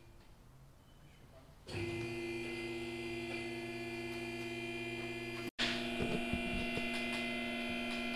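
Electric motor of a vehicle lift's hydraulic power unit running with a steady hum as the truck is raised. It stops at the start, starts again after about two seconds, and cuts out for an instant after about five and a half seconds.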